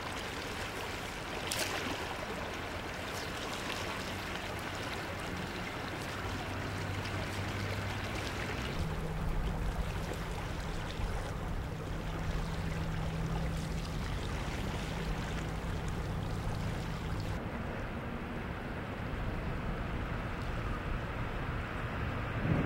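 Rushing river water, a steady noise with a faint low hum under it. The sound shifts abruptly about nine and again about seventeen seconds in.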